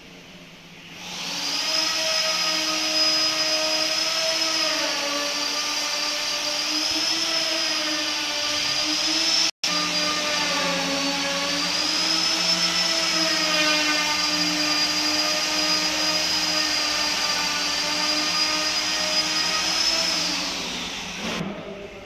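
Electric motor-driven machine running steadily with a whine that wavers slightly in pitch. It starts about a second in and fades out near the end, with a split-second break near the middle.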